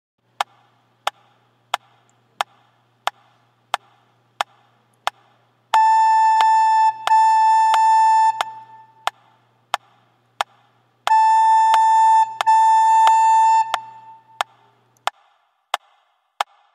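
Metronome clicking steadily at about 90 beats a minute with the recorder note A played along as half notes. Eight clicks count in, then two held notes of two beats each, a bar of clicks alone, two more held notes, and another bar of clicks.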